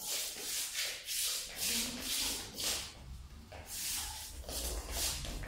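Quick swishing and rubbing sounds, about two a second, from a martial artist's clothing and feet sliding on a wooden floor as he performs a form's strikes and steps.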